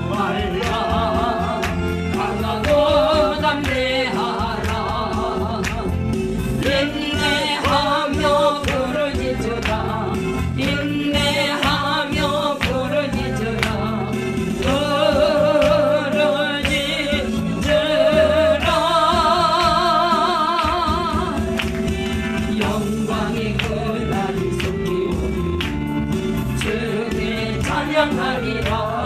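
Korean gospel song playing: a singing voice carries a wavering melody over steady instrumental backing, with one long note held with heavy vibrato about two-thirds of the way in.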